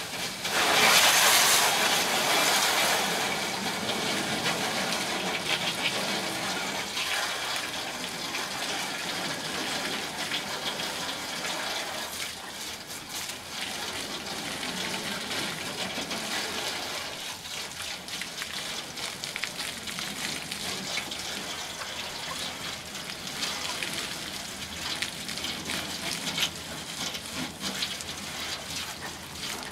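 Garden hose spraying water over a chicken coop, a steady rush and splash of water that is loudest in the first few seconds.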